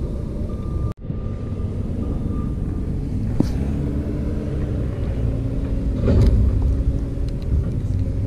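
Steady low rumble with a faint hum, broken by a sharp click about three and a half seconds in and a louder knock just after six seconds, as a spinning rod is recast and its reel wound back.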